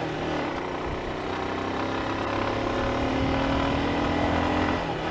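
Bajaj Pulsar 180's single-cylinder engine running under way, its note climbing slowly through the middle and dropping back near the end.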